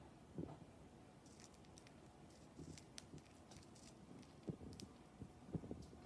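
Faint, scattered small clicks of a budgie cracking millet seeds from a millet spray, with a few soft thumps.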